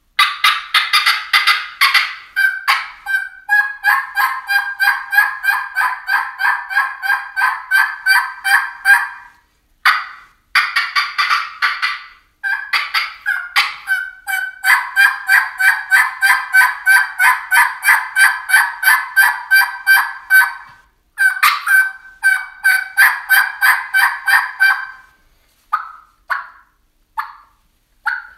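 A three-reed batwing diaphragm mouth turkey call, the Pecker Wrecker Hot Lips, played to imitate a hen turkey: long runs of evenly paced yelps, about three a second, each note breaking from a lower to a higher pitch. Faster runs of notes and short pauses come between the runs, and the calling thins to a few single notes near the end.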